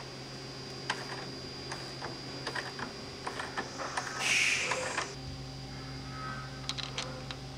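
Hand tools working on a motorcycle: scattered light metallic clicks and taps, with a brief rustling hiss about four seconds in and a few more clicks near the end, over a steady electrical hum.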